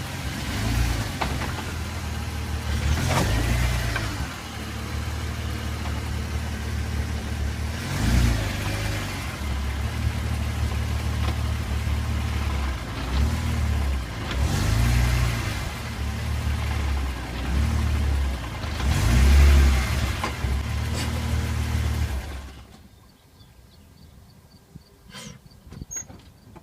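BMW E46 M3's straight-six engine running at idle with about five brief throttle blips as the car creeps up onto wooden blocks, then switched off about 22 seconds in. A few faint clicks follow.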